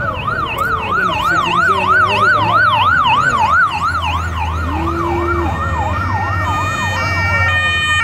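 Sirens of a motorcade's police escort. A fast rising-and-falling yelp cycles about three times a second and fades after about four seconds. A second siren stepping between pitches grows louder toward the end, over the low rumble of engines, with a brief low horn note about five seconds in.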